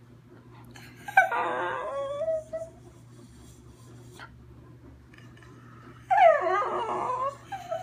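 A schnauzer 'singing': two short whining howls with a wavering pitch, about a second and a half each, the first about a second in and the second near the end.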